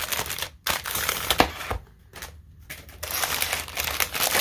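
Clear plastic shrink wrap crinkling and crackling as it is worked off a cardboard knife box, with a sharp crack about a second and a half in and a brief lull around two seconds in.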